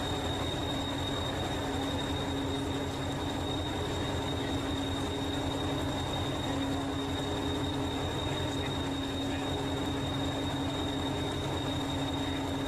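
Miniature railway locomotive running steadily: a fast low pulsing with a steady hum and a thin high whine, without separate chuffs.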